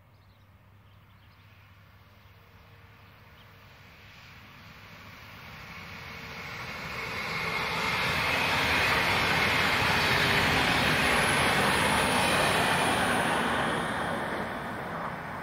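A vehicle passing close by: a broad rushing noise swells slowly over about eight seconds, holds loud for several seconds, then begins to fade near the end.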